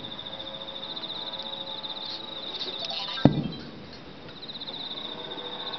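A single sharp firework bang about three seconds in, with a short low rumble after it, over a steady high, fast trill of insects.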